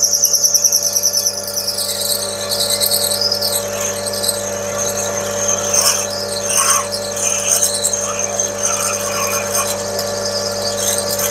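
Metal lathe running with a 12 mm twist drill feeding into the bore of a spinning axle pump body: a steady motor hum under a high, wavering squeal of the drill cutting.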